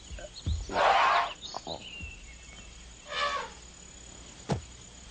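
Wild animal cries over jungle ambience. The loudest is a harsh, noisy cry about a second in. Another cry comes about three seconds in, then a short sharp call near the end, with a few brief bird-like chirps in between.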